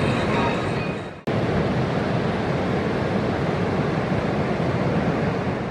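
Steady rush of breaking ocean surf mixed with wind, briefly fading out about a second in and cutting straight back in.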